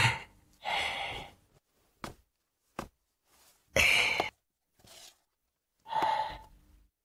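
A man's short breathy sighs and gasps, about six of them, with a couple of faint clicks in between.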